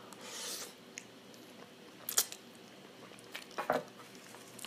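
Quiet eating sounds: a short soft hiss at the start, then a few light clicks, the sharpest a little over two seconds in, and a brief soft mouth sound near the end.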